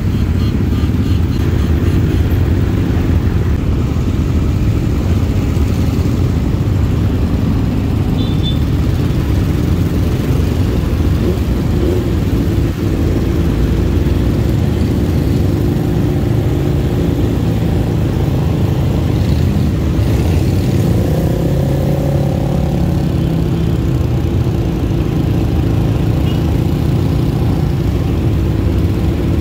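Engines of a large group of motorcycles and quad bikes riding slowly together, a steady low drone, with engines revving up and down around twenty seconds in.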